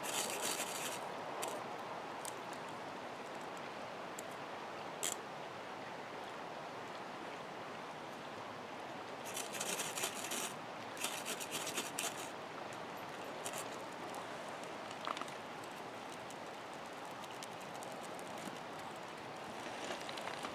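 Steady rush of a shallow creek flowing over stones. Over it come a few short bursts of close scraping and crinkling, at the start and again about ten seconds in, as a small twig stove is being lit.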